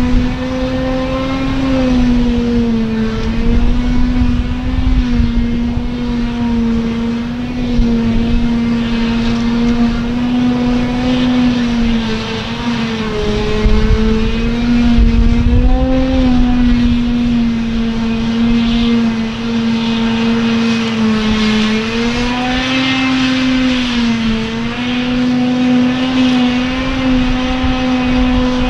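Claas Jaguar 940 forage harvester chopping grass: a loud, steady machine drone whose pitch sags several times and recovers as the crop load on the engine and chopper changes.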